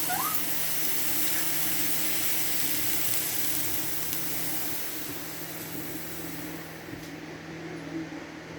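Food sizzling in a frying pan: a steady hiss over a low, steady hum, the highest part of the hiss dropping away about seven seconds in.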